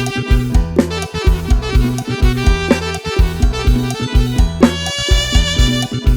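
Luk thung band music from a software production: a steady beat on a virtual drum kit (Addictive Drums 2) over sustained bass, with a lead melody that slides up in pitch a little past the halfway point.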